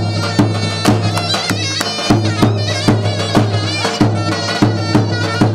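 Davul and zurna playing a Turkish folk dance tune: a wind instrument's wavering, ornamented melody over regular deep drum strokes.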